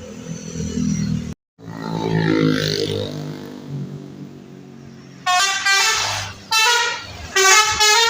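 Bus telolet horn, a Basuri multi-trumpet air horn, sounding its stepping multi-note tune in three loud blasts starting about five seconds in. Before it, a low steady bus engine hum.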